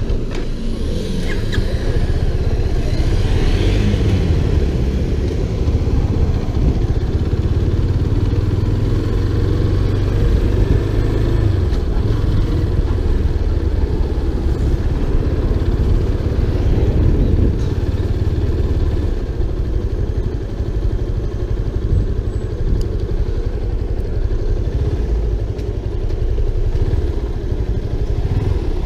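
Motorcycle engine running as the bike rides at low speed, under a steady low rumble.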